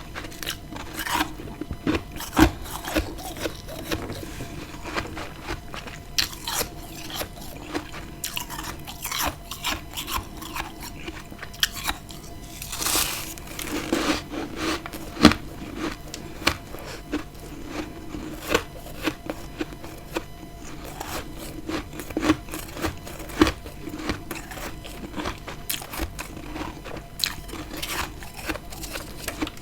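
Close-miked biting and chewing of freezer frost: dense, irregular crunching crackles, with a longer noisy crunch about 13 seconds in.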